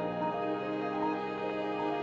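Soft ambient new-age background music of long sustained chords, moving to a new chord about a third of a second in and again near the end.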